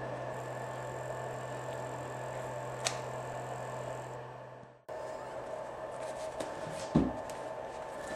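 Kittens scrambling on a carpeted cat tree: light scrapes and taps, and one sharp thump about seven seconds in. Under them runs a steady low hum that fades out a little past halfway and then comes back.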